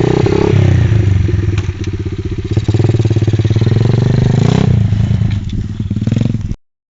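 125cc Thumpstar pit bike's single-cylinder four-stroke engine running and being revved, its pitch rising and falling several times; the bike's clutch lever is broken. The sound cuts off suddenly near the end.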